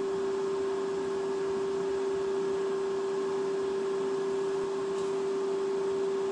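A steady hum at a single clear pitch, holding level and unchanging throughout, with a faint hiss beneath it.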